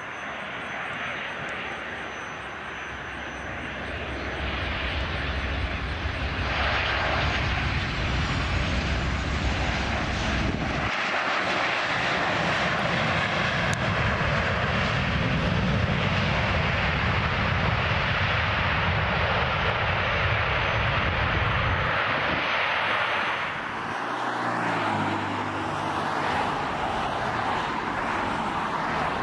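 Jet engines of a landing Southwest Boeing 737, growing louder over the first few seconds and holding loud and steady through touchdown and the run down the runway. Near the end the sound drops suddenly to the quieter, steadier engine sound of another Boeing 737-800 on approach.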